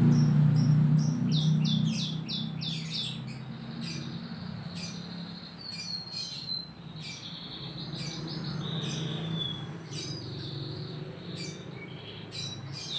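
Canary twittering: quick runs of high chirps and short trills, starting about a second and a half in and going on throughout. Under it runs a low steady hum, loudest at the start and fading after about two seconds.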